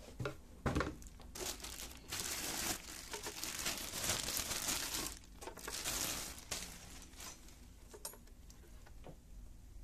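Clear plastic bag crinkling as it is unwrapped from a boxed electronic device. A few light knocks come first, then the crinkling is loudest for several seconds in the middle and fades to faint rustling.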